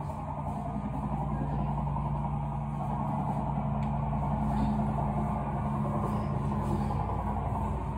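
A steady low mechanical hum with a few level low tones and a hazy background rumble, unchanging throughout.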